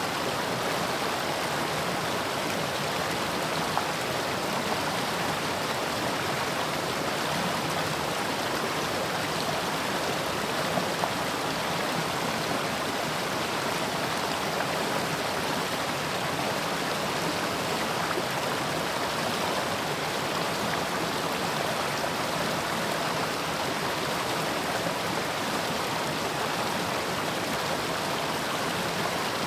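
Mountain stream rushing over rocks: a steady, even rush of water with no break, with a few slightly louder splashes now and then.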